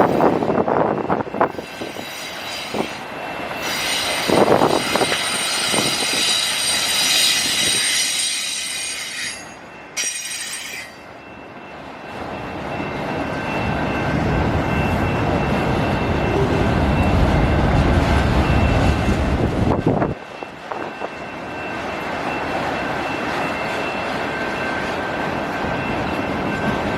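Autorack freight cars rolling past on steel wheels, with high wheel squeal for the first several seconds, then a steady rolling rumble that builds and carries on.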